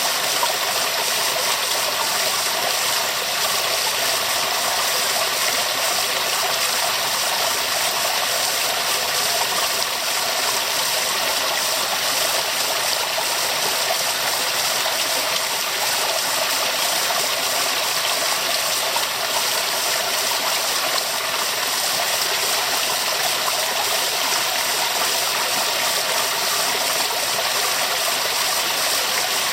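Waterfall: rushing water falling steadily, a constant even hiss with little low rumble.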